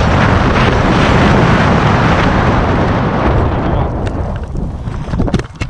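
Loud wind rushing over the camera microphone as a tandem skydiving pair come in to land, fading out after about three and a half seconds as they slow to a stop on the ground; a few sharp knocks near the end.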